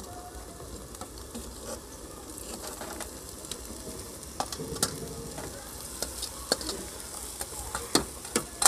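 Steel slotted spoon scraping and clicking against a steel colander and pot as cooked rice is spooned into hot sugar-and-ghee syrup, over a soft sizzle from the pot. The sharp clicks come more often and louder in the second half.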